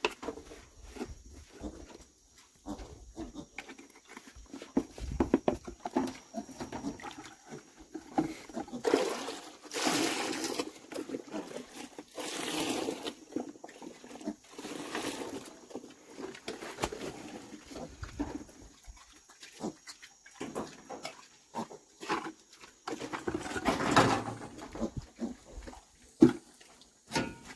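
Black pigs and piglets grunting and snuffling in their pen, in short irregular sounds with several louder noisy bursts in the middle and one near the end.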